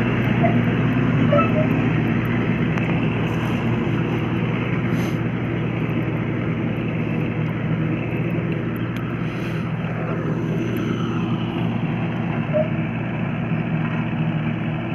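Road roller's diesel engine running steadily, a continuous low hum that grows slightly fainter over the seconds.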